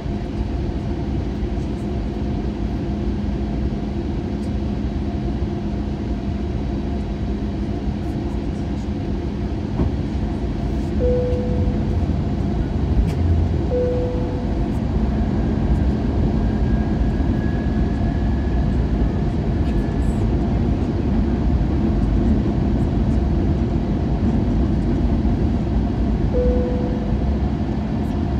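Steady cabin rumble inside an Airbus A320neo, from engine and airflow noise, with a slight rise in level about a third of the way through. Three brief tones sound a few seconds apart.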